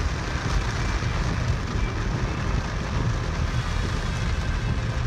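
Steady noise inside a moving car driving through heavy rain: a low road rumble under an even hiss of rain on the car.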